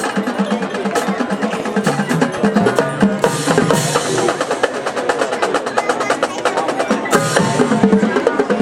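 High school marching band playing, sustained horn lines over a drumline's rapid snare strokes, with cymbal crashes twice, about three and seven seconds in.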